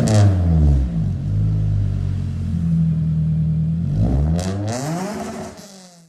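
Honda CG 125's air-cooled single-cylinder four-stroke engine revved through a modified exhaust. The revs fall back over the first second and hold steady, then rise again about four seconds in before fading out.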